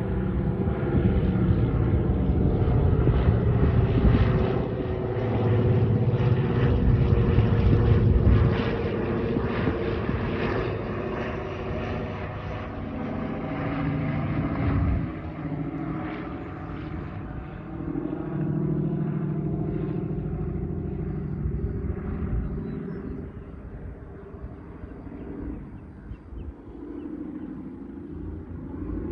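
Twin-engine propeller airplane droning overhead, loudest in roughly the first ten seconds and then slowly fading as it flies on.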